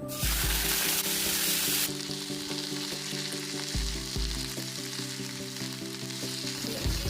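Food dropped into hot oil in a pan, starting with a sudden loud sizzle that settles after about two seconds into a steady frying sizzle while it is stirred.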